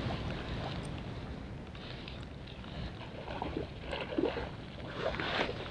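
Water sloshing and splashing in irregular bursts as a hooked coho salmon is played on a fly rod from the shallows, over a steady background hiss.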